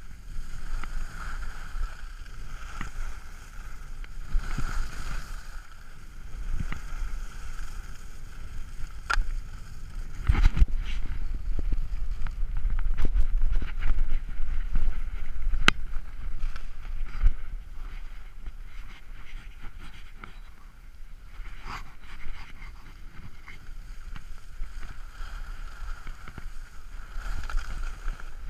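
Wind rushing and buffeting over the microphone of a downhill skier in motion, with skis hissing and scraping over packed snow and a few knocks. It is loudest around the middle of the run.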